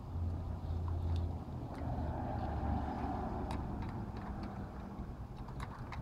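Small plastic toy trucks being pushed, scraped and knocked together in sand, giving scattered light clicks over a steady low rumble.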